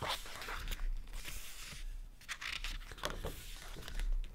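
Pages of a thick photobook being turned by hand: a few soft paper rustles and swishes.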